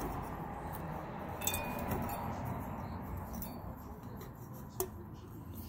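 A thin guide wire being pulled slowly through a spin bike's console-mount tube to draw the wiring connector through, with faint scraping and a few light metallic clicks.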